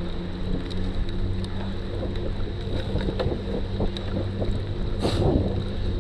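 Wind buffeting the camera microphone over the rumble of a cyclocross bike's knobby tyres rolling on a dirt and grass track, with scattered small clicks and rattles from the bike. A louder bump comes about five seconds in.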